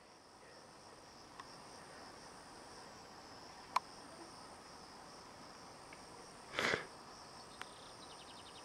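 Faint, steady high-pitched insect song, with a sharp click about four seconds in and a short, louder burst of noise about six and a half seconds in.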